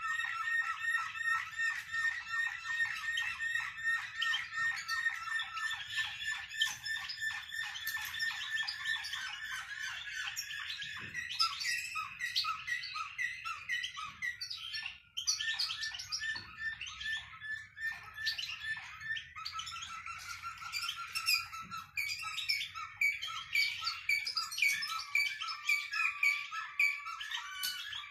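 Songbird singing continuously: fast runs of repeated clear notes and trills, with a brief break about halfway through.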